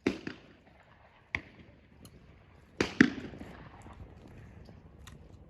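Shotgun shots on a trap range: five sharp reports, each with a short echo. Two of them come in quick pairs about a quarter second apart, and the loudest comes about three seconds in.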